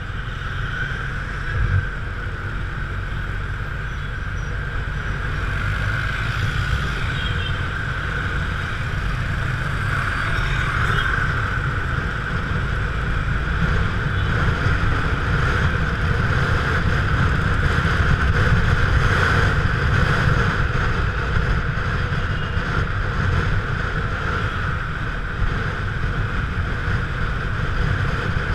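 Wind buffeting the camera microphone on a moving motorcycle: a steady low rumble and rush, with the bike's engine and road noise underneath and a short bump about two seconds in.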